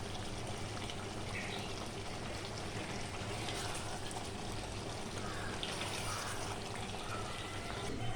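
Chicken curry bubbling steadily as it boils in the pot.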